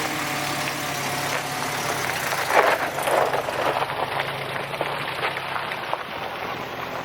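Jeep engine running on the move, with steady road noise and scattered clicks and rattles, and a louder rush of noise about two and a half seconds in.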